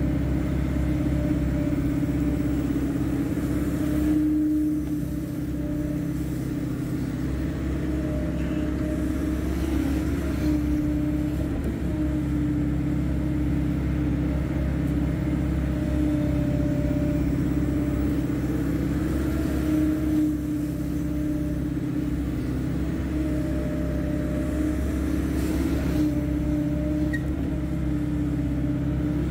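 Hydraulic excavator's diesel engine running steadily at working speed, a constant drone with a strong steady hum.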